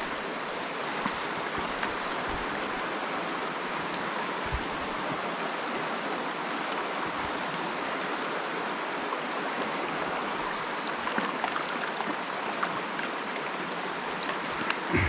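Mountain stream running over a shallow riffle: a steady, even rush of water.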